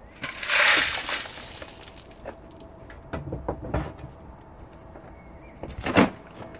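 Washed gravel rattling and sliding in a rubber pan for about a second, followed by scattered clatters and knocks as the pan is handled on a plastic barrel, with one sharp knock about six seconds in.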